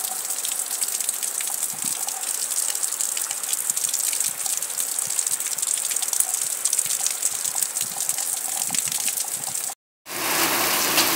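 Heavy rain pouring down: a steady hiss of falling water with a dense patter of drops. Just before ten seconds in it cuts out for an instant, then picks up again as a different downpour.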